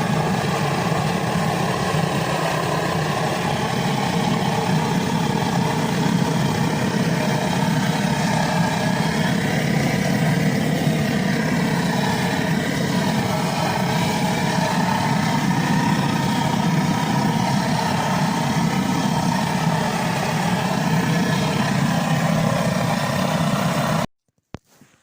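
Gas blowtorch flame running steadily as the wooden walls of a beehive are scorched; it cuts off abruptly near the end.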